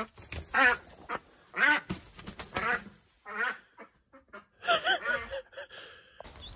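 Runner duck quacking, five or six loud quacks in a row spread over about five seconds.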